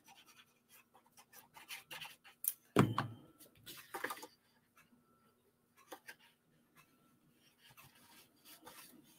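Cardstock and patterned paper being handled: soft rustling, scraping and sliding of paper on a craft mat, with one thump about three seconds in.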